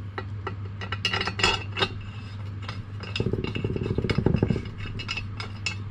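Light metallic clinks and taps of a mild-steel crankcase stud being handled and started by hand into the threaded hole of a BSA C15 crankcase, with a steady low hum underneath.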